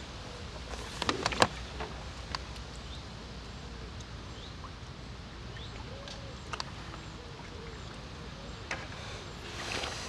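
Outdoor ambience: a steady low rumble like wind on the microphone, a few sharp clicks and taps, the loudest about a second in, and faint bird calls.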